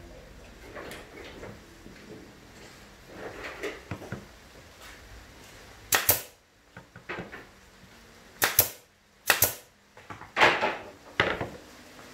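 Pneumatic brad nailer firing nails into a plywood speaker cabinet: about five sharp shots, each with a short puff of air, starting about halfway through. Before them come softer knocks and scrapes as the plywood panels are set in place.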